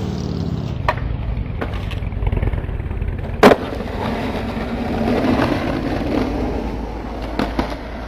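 Skateboard wheels rolling on concrete, with several sharp clacks of the board; the loudest comes about three and a half seconds in, as the board lands after a handrail trick, and two smaller clacks follow near the end.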